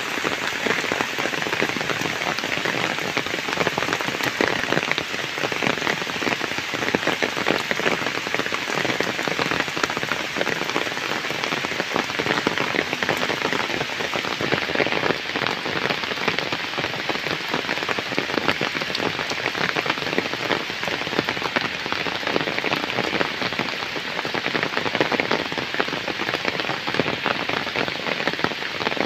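Heavy rain falling steadily on flooded ground and trees: an even, dense hiss of countless drops with fine close splashes, unchanging throughout.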